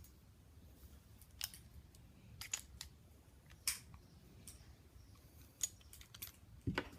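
Faint, scattered metallic clicks from a Sig Sauer 1911 pistol being taken apart by hand, as the slide stop is worked free and the slide moved.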